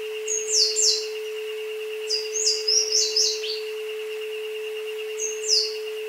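Steady electronic tone of an isochronic-tone track, mixed with recorded jungle birdsong: quick downward-sweeping chirps in three bursts.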